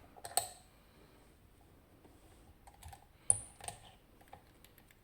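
Metallic clicks and clacks from an Abloy Sentry padlock being handled as its shackle is pushed closed with the pick still in the lock, the sharpest clack about three seconds in.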